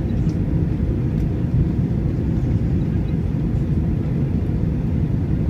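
Cabin noise inside an Airbus A321 in flight: a steady low rumble of engines and airflow on the fuselage, unchanging throughout.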